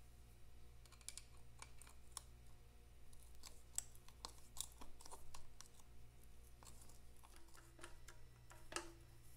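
Faint, irregular metallic clicks and taps of a screwdriver turning and seating a worm-drive hose clamp on a rubber oil line, over a low steady hum.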